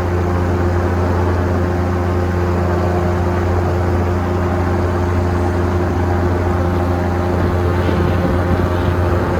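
Steady drone of a light propeller aircraft's engine, holding an even pitch with no change in speed.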